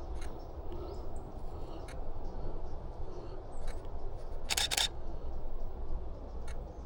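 DSLR shutter firing: a sharp double click about four and a half seconds in, with a few fainter single clicks around it over a low steady rumble.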